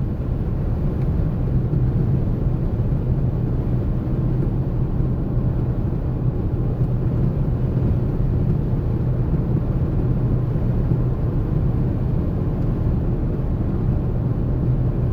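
Steady road and tyre noise inside a car's cabin at highway speed, with a low steady drone. It includes an unidentified noise from the front passenger side, which the driver suspects is the struts, shocks or stabilizer bar bushings.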